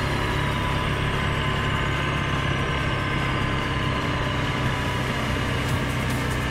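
Suzuki KingQuad 750 ATV's single-cylinder engine running steadily at cruising speed while riding along a gravel trail.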